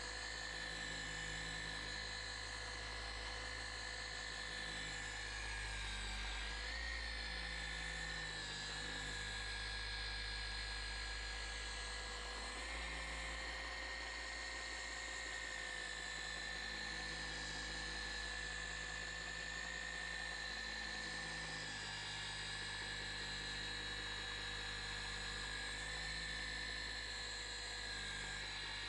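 Small handheld micro polisher running steadily with a steady whine, polishing a car's painted panel to remove the haze left by 3000-grit wet sanding. Its pitch shifts slightly a few times as the pressure on the pad changes.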